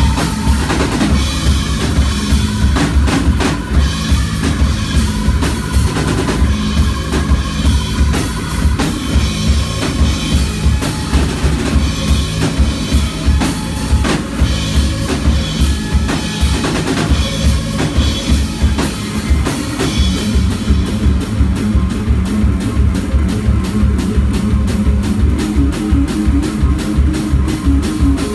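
Live heavy rock band playing an instrumental passage: two electric bass guitars over a pounding drum kit with bass drum and snare. About two-thirds of the way through, the drummer moves to fast, even cymbal strokes.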